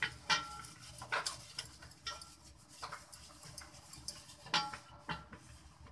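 Stainless-steel plate being greased by hand: irregular light clinks and knocks of the steel, about half a dozen, a few leaving a short metallic ring.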